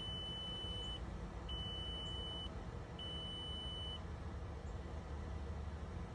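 A car's electronic warning chime beeps three times, each beep about a second long with short gaps. The chime is heard through the open door of a 2002 VW Jetta TDI with the ignition on, just before a cold start, over a steady low background rumble.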